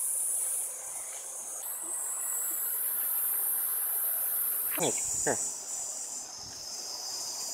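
A steady, high-pitched chorus of tropical insects that shifts pitch a couple of times. About five seconds in come two short calls that slide quickly downward.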